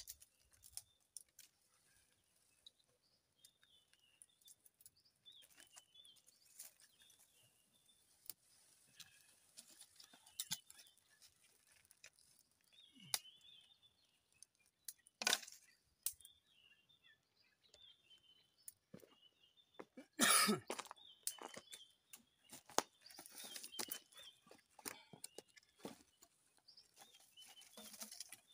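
Scattered snaps and crackles of dry twigs and grass being handled at a small smouldering tinder fire, with faint birds chirping in the background. A louder short rush of noise comes about twenty seconds in.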